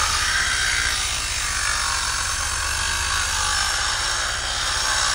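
Handheld angle grinder cutting into a stone block, running steadily under load with a high grinding whine.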